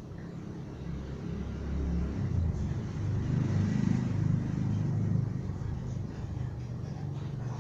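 A road vehicle passing: a low engine rumble that builds over about two seconds, holds, and fades away.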